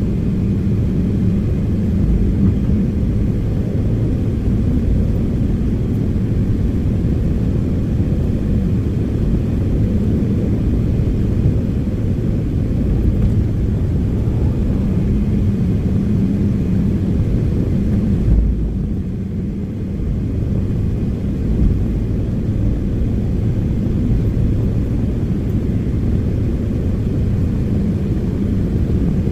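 Excavator's diesel engine running steadily with a deep, even drone; a short thump a little past halfway is followed by a brief drop in level.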